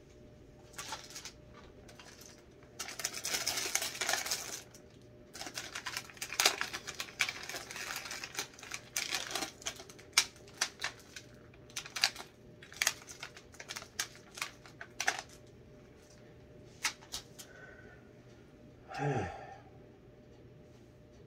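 Crinkly plastic cookie packaging being handled, with a stretch of rustling followed by many sharp, irregular crackles. Near the end there is a brief sound from the person's voice that drops in pitch.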